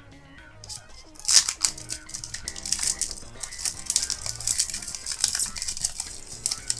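Foil Pokémon Hidden Fates booster pack wrapper crinkling and crackling as it is handled and opened. The crackling starts about a second in and is loudest just after it begins.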